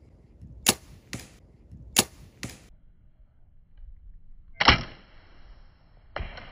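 Compound bow shot sounds: sharp snaps in two quick pairs, then two louder cracks, each followed by a short ringing tone lasting about a second.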